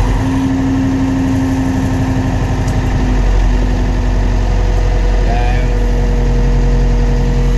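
David Brown 1490 tractor's four-cylinder diesel engine running steadily at raised revs, heard from inside the glazed cab. A steady low hum carries a held whine that eases slightly lower near the end.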